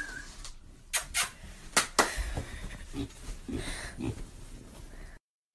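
A small black-and-white piglet moving about: a few sharp taps and clicks in the first two seconds, then soft low grunts. The sound cuts off suddenly near the end.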